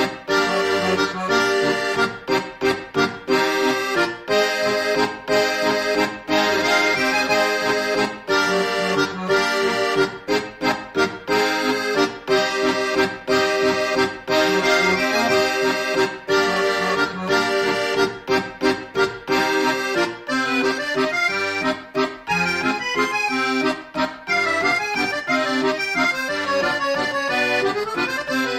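Instrumental background music: a tune of sustained notes broken by short, regular rhythmic stops.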